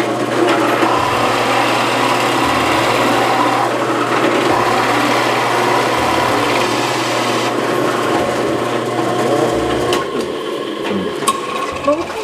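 Bench drill press running, its bit boring a hole through a wooden cutting board. The motor's steady hum stops about ten seconds in.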